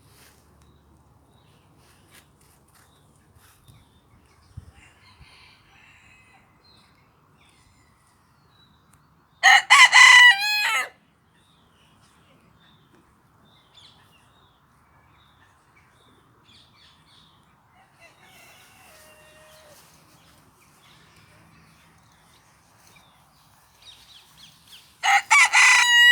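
Cochin rooster crowing twice, each crow about a second and a half long, the second coming about fifteen seconds after the first, near the end. Faint, softer bird calls come in between the crows.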